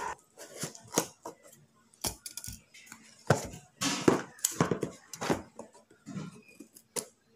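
Scissors snipping and cutting through the tape and cardboard of a parcel, with rustling and handling of the box: an irregular run of sharp snips and scrapes, some louder than others.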